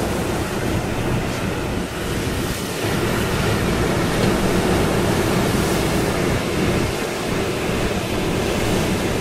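Storm wind and surf during a hurricane: a steady rushing noise with heavy wind buffeting rumbling on the microphone.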